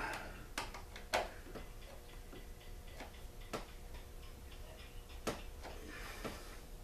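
Faint, irregular clicks and ticks of a screwdriver and small screws being worked out of a panel on a small two-stroke generator, about half a dozen in all, the sharpest about a second in and again past three and a half seconds.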